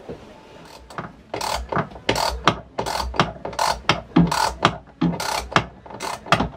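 Hand pump of a yacht's hydraulic backstay adjuster being worked stroke after stroke to build pressure in the ram: a steady run of mechanical clacks, about three a second, growing loud about a second and a half in.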